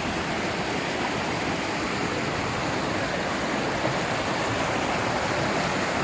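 Small mountain river rushing over rocks: a steady rush of flowing water.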